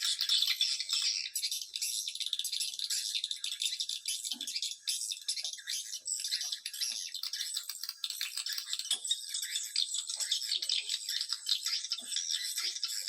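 Swiftlet lure-call recording: a dense, continuous high-pitched chatter of swiftlet twitters and rapid rattling clicks, with no pause. It is the kind of calling sound played from swiftlet houses to draw the birds in to roost and nest.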